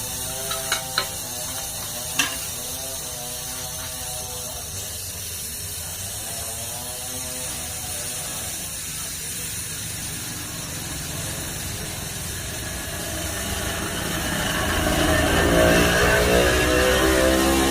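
A few sharp metallic clicks of tools working the refrigerator's copper pipe, then a louder hiss with a low rumble that builds near the end.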